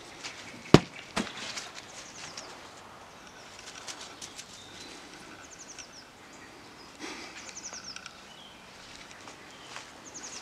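Small birds singing in the background, with quick high trills of rapidly descending notes several times, over a Labrador puppy's faint rustling in grass and fallen leaves. A sharp knock just under a second in is the loudest sound, with a smaller one half a second after.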